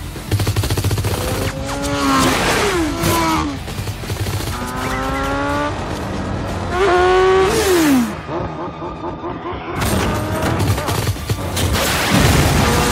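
Action-film sound mix: motorcycle engines revving up and sweeping past with falling pitch, bursts of automatic gunfire, and an explosion near the end, over background music.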